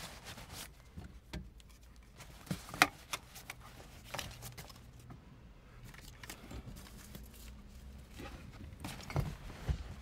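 Small clicks, knocks and rustles of objects being handled inside a vehicle cab, irregular, with one sharper click about three seconds in.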